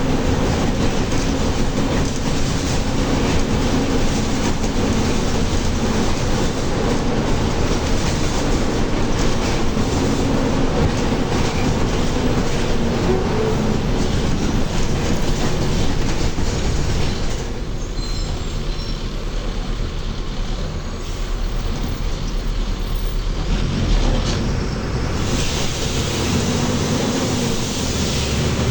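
Mercedes-Benz OF-1724L city bus's front-mounted diesel engine running under way, with body and cabin rattle. About two-thirds of the way through it settles to a lower rumble for several seconds, then pulls again near the end.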